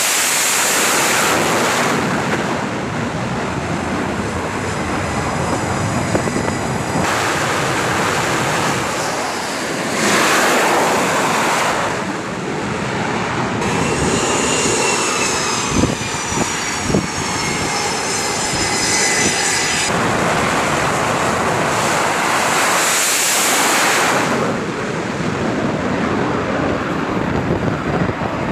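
Jet engines of F/A-18 Super Hornet-family aircraft running loud on a carrier flight deck, heard in several short cuts; near the middle a high whine slowly falls in pitch, with two short thumps.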